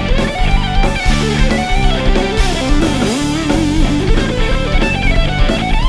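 Background rock music led by electric guitar, with a steady beat.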